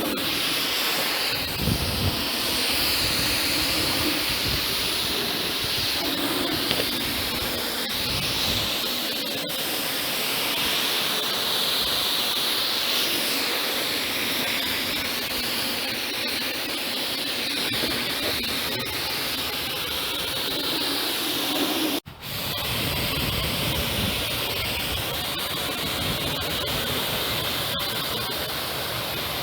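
Kärcher K7 pressure washer jet spraying water onto a car: a steady, loud hiss of spray. It cuts out sharply once, about three-quarters of the way through, then resumes.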